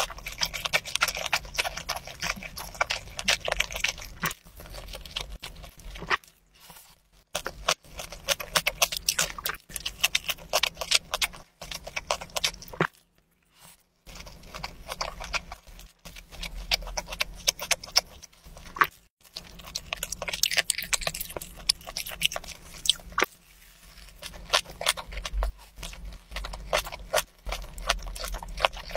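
Close-miked chewing and wet mouth smacking on a mouthful of spicy webfoot octopus, beef and rice: a dense run of quick clicks and squelches, broken by a few short pauses.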